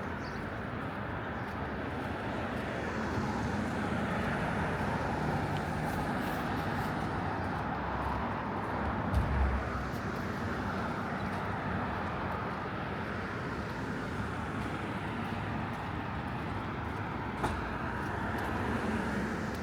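Street traffic noise: a steady hum of passing road vehicles, with a brief low thump about nine seconds in.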